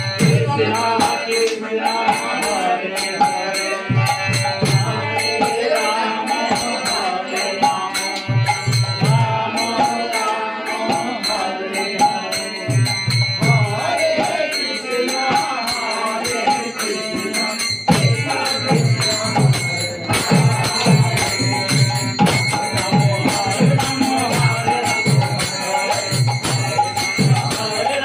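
Devotional kirtan music: a khol (Bengali barrel drum) beats a rhythm under group chanting, with jingling percussion over it. The drum strokes come faster and more evenly from about two-thirds of the way through.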